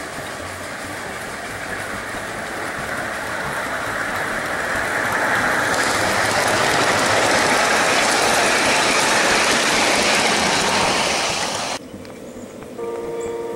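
Ride-on scale model train running past on its track, the rolling wheel and rail noise growing louder as it nears, then cutting off suddenly. Near the end a steady chord-like signal of several tones begins.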